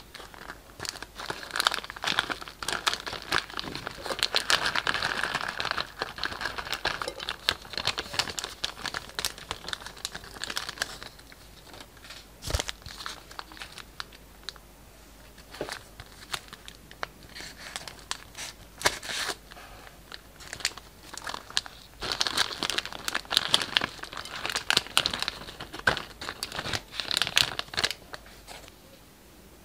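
Plastic piping bags crinkling and rustling as they are handled and squeezed, with many small crackles and clicks. The crinkling is busiest in two spells, in the first third and again near the end, with a quieter stretch between.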